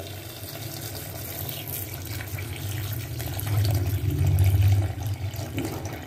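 Coconut milk with ground cashew and coconut paste being poured slowly into a pressure cooker of curry gravy: a steady liquid pour that grows louder a little past the middle.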